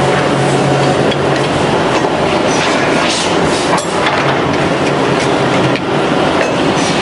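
Semi-automatic finger-joint woodworking machine running: a loud, steady mechanical clatter with a low hum near the start and a few sharp clacks scattered through.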